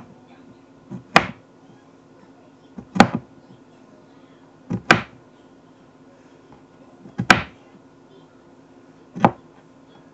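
A kitchen knife chopping down onto a cutting board while strawberries are cut up, as five sharp knocks about two seconds apart, some of them doubled.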